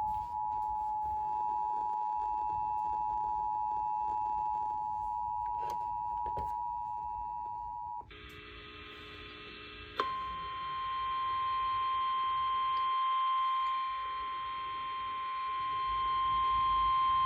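Emergency Alert System attention signal played over the radio. The two-tone alarm holds steady for about eight seconds, then there is a brief lower, rougher tone, then a single steady, slightly higher tone for about seven seconds. It announces a severe thunderstorm warning.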